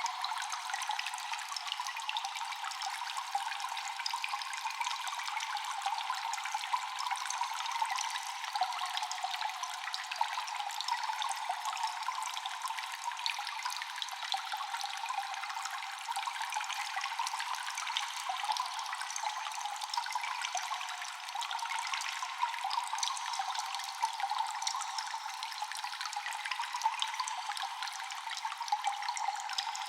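Water dripping and trickling in a cave: many drops falling in quick, irregular succession over a constant wet trickle, with cave echo. It is thin and high, with no low end.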